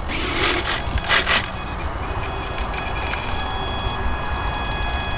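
Electric ducted fans on a 1/20-scale RC Boeing 777-9X airliner running before its maiden flight: two short hissing rushes in the first second and a half, then a steady high whine that sets in about two seconds in and holds, over a low rumble.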